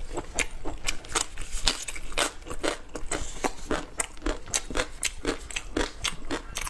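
Close-miked chewing of spicy ring sausage: a steady run of short wet mouth clicks, about three to four a second.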